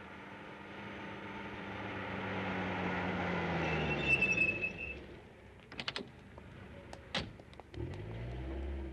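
A taxi pulling up: the engine note grows louder, then drops in pitch as the car slows, with a brief brake squeal about four seconds in. A few clicks and a sharp door-shutting knock follow about seven seconds in, then the engine picks up again near the end as the car moves off.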